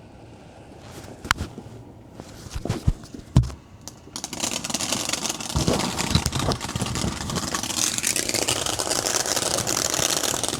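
Consumer fireworks: a few sharp pops, then from about four seconds in a steady, loud crackling hiss of spraying sparks, like a ground fountain firework burning.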